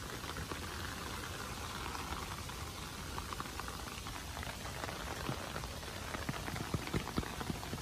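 Steady rainfall hiss, with single drops tapping more often in the last few seconds.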